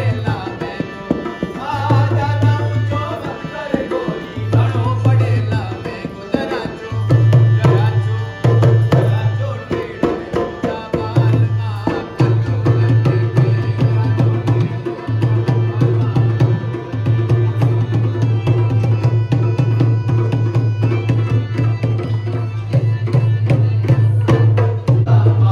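Live Rajasthani folk dance music: a hand drum played in a fast, steady rhythm, with a voice singing over roughly the first half and low held notes underneath.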